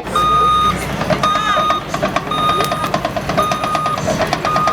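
Reversing alarm on a Caterpillar backhoe loader beeping about once a second, over the machine's diesel engine running with a quick clatter.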